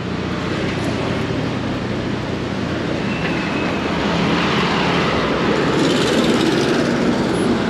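Steady traffic noise: a continuous rush with the low hum of vehicle engines running nearby, a little louder from about five to seven seconds in.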